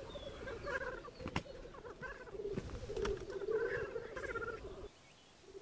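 Black grouse cocks lekking: a continuous low, bubbling, dove-like cooing song, with sharper higher calls and a few clicks over it. It stops about five seconds in.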